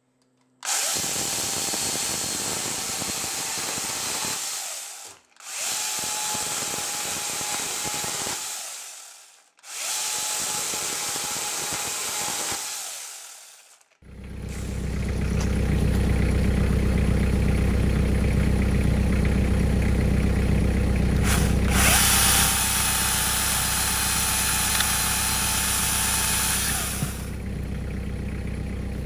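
Electric angle grinder with a chainsaw bar attachment, run in three bursts as its chain cuts into a clamped 2x4. Each burst starts suddenly, carries a steady motor whine, and fades as the grinder winds down. After an abrupt change about halfway through, a different steady, low machine sound takes over, louder for a few seconds near the end.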